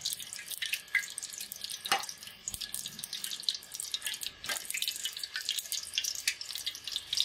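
Oil heating in an aluminium frying pan on a gas burner, crackling and spitting in a dense run of small pops, with a couple of sharper pops about two and four and a half seconds in.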